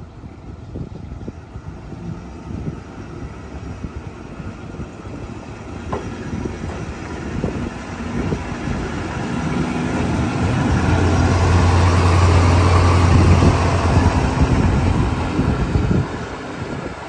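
Kominato Railway KiHa 200 diesel railcar pulling out and passing close by: its engine drone and the wheels on the rails grow louder from about eight seconds in, hold a steady low hum as it goes past, and fall away sharply near the end.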